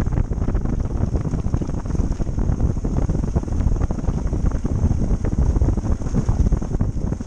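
Dual-sport motorcycle ridden along a dirt road, its running mixed with gusty wind buffeting on the microphone.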